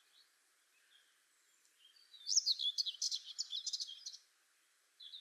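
A songbird singing: a faint short call, then about two seconds in a quick phrase of high whistled notes and trills lasting about two seconds, with the next phrase starting near the end.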